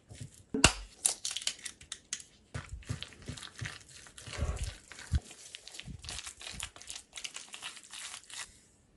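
A metal fork mashing and stirring cottage cheese and egg in a ceramic bowl: irregular scraping and clicking of the fork against the bowl, with a sharp knock a little under a second in.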